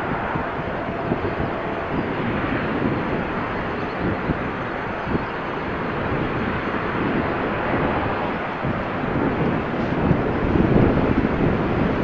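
Lockheed L-1011 TriStar's three Rolls-Royce RB211 turbofan engines, a steady jet roar as the airliner rolls fast along the runway, growing louder in the last few seconds.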